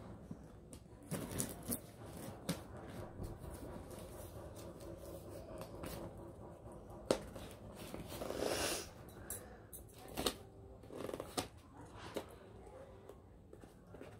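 Scissors and hands working at the packing tape on a cardboard shipping box: scattered clicks, scrapes and rustles of blades and fingers on tape and cardboard, with a louder rasp lasting about a second about eight seconds in.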